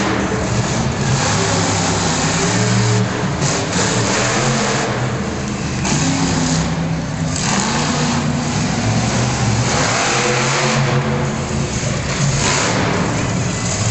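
Monster truck's large engine revving hard in repeated surges, its pitch rising and falling as the truck spins donuts on a dirt floor.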